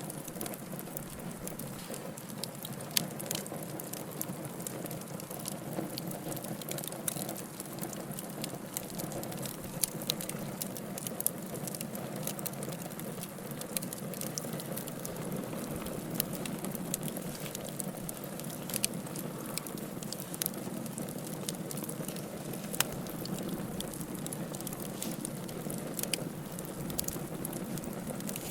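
Wood fire burning in a fireplace: a steady low rush of flames with frequent small crackles and pops, and a few sharper, louder snaps.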